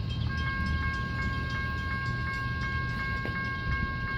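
Low, steady rumble of approaching freight locomotives running light. About a quarter second in, a railroad bell starts ringing, struck about three times a second.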